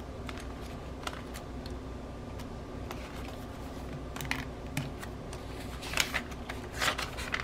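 Thin pages of a B6 Stalogy notebook being flipped and turned by hand: soft paper rustles, with a few louder page swishes in the second half. A steady low hum runs underneath.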